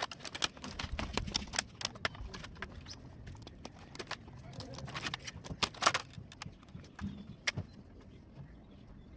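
Irregular clicks, taps and light rattles of small plastic and metal laptop parts being handled and pried apart by hand, busiest in the first two seconds and again around five to six seconds in.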